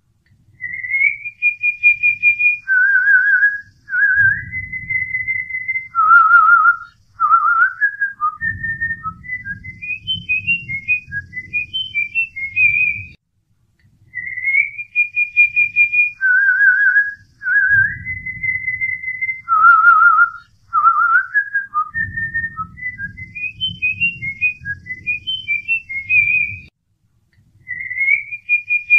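A whistled melody of held notes, glides and quick trills, one phrase about 13 seconds long played twice, note for note the same, as a looped soundtrack.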